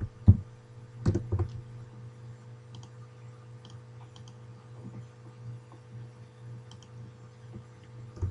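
Computer keyboard keystrokes, loudest in the first second and a half, then sparse quieter mouse clicks, over a steady low hum.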